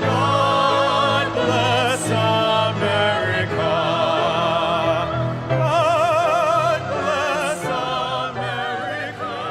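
Music: singing with a wide vibrato over sustained instrumental accompaniment.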